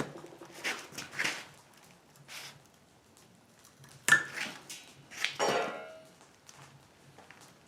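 Scattered metal clanks and knocks from handling steel tools and stock, with a sharp clank about four seconds in and a ringing metallic clang a second later.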